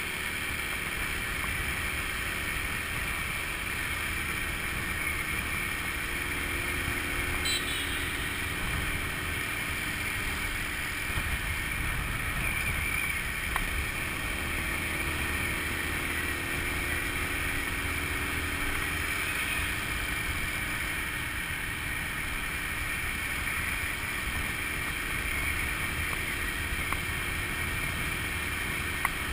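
Small Honda scooter running steadily at road speed, its engine hum under wind and road noise on a handlebar-mounted camera.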